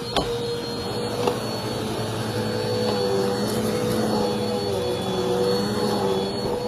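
Dirt Devil Vigor cyclonic pet vacuum cleaner running steadily, its motor giving a constant whine over a rushing airflow, with a couple of light clicks in the first second or so.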